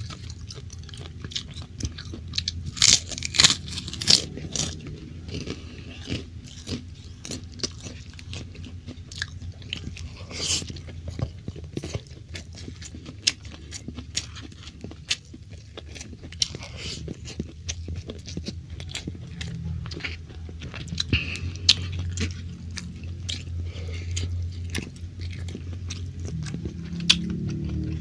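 Close-miked eating: chewing and biting a mouthful of stir-fried beef and rice, with wet mouth sounds and scattered crunchy bites, over a low steady hum.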